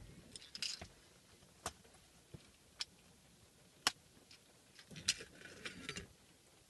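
Small sharp clicks and taps from handling a screwdriver, screws and the plastic shifter trim ring: four separate clicks about a second apart, the loudest about four seconds in, with soft rustling of the gaiter fabric and trim near the start and in the last couple of seconds.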